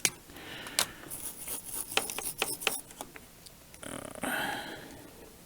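Small clicks and taps of tools and wire being handled while motor leads are soldered to a drone's ESC, with a short hiss about four seconds in.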